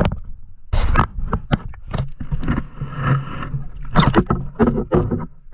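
Irregular splashing and sloshing of water: a flounder speared on a gig thrashes at the surface while the gig pole is worked up through the water.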